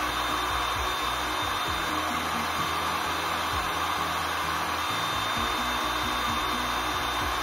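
Electric heat gun running steadily on its highest setting, a constant rush of air from its blower, with a low steady hum underneath.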